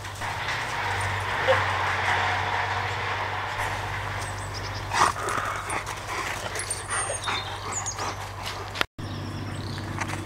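Dogs playing, with barks and yips.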